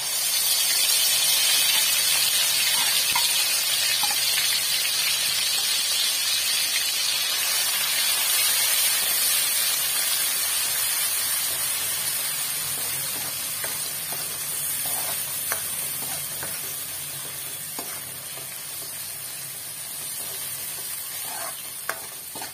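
Wet ground masala paste dropped into hot oil in a steel kadhai, setting off a loud sizzle that slowly dies down as it is stirred, with a few light clicks of a steel ladle against the pan in the second half.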